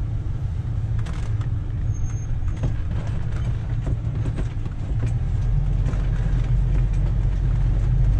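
RV engine and road rumble heard from inside the cab as it drives slowly around a campground loop, with scattered clicks and rattles. The rumble grows a little louder about five seconds in.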